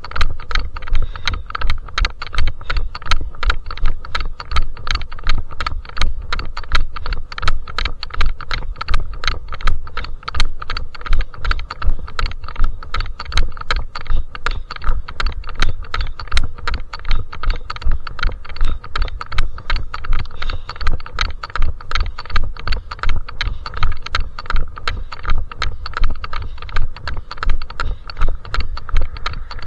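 Footsteps of a trail runner climbing a mountain trail, a steady even rhythm of scuffs and knocks, each stride also jostling the microphone with a low thud.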